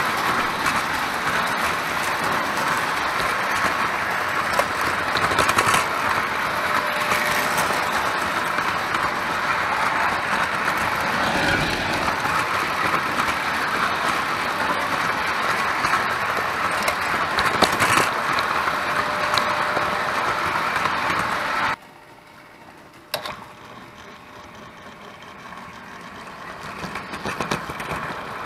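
Prewar Lionel tinplate electric toy trains running on metal track, a steady noisy rumble of wheels and motor close by. About three quarters through it drops off suddenly to a much quieter hum, with a single sharp click a second later, then builds again near the end.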